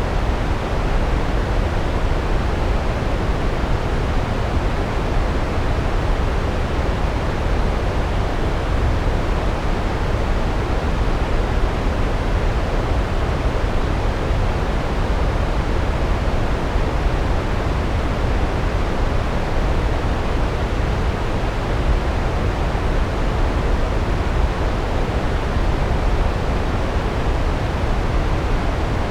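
Large waterfall, a steady deep rush of falling water with no change throughout.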